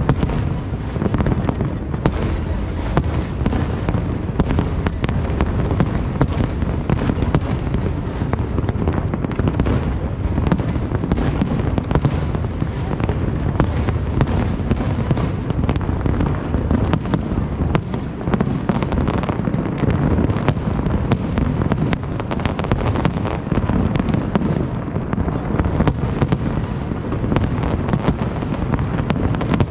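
A large aerial fireworks display: many shells bursting in quick succession, their booms running together into a continuous rumble, with sharp cracks and pops all the way through.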